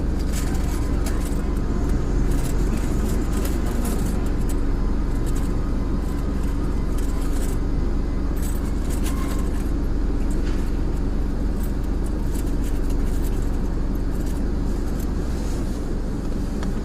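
A car running with a steady low hum, a few light clicks and ticks over it.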